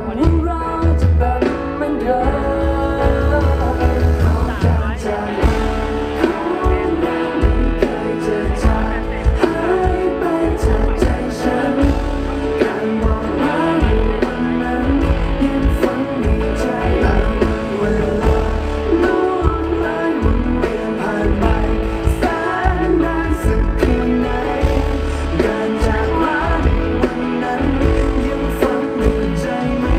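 Live performance of a pop song: a male voice singing over band accompaniment, heard loud through the concert sound system.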